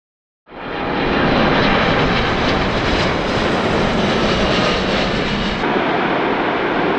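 Jet engine noise of a Japan Airlines Boeing 777 on landing, fading in quickly and running steady and loud. A little before the end the sound changes abruptly, with less low rumble, as it switches to the airliner rolling out on a snowy runway with its thrust reversers deployed.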